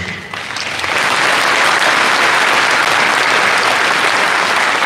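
A large seated audience applauding, swelling over the first second and then holding steady.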